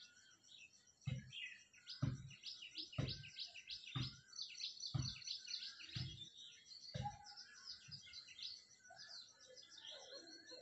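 Small birds chirping in quick, falling chirps, with a dull low thud repeating about once a second from about a second in until about eight seconds in.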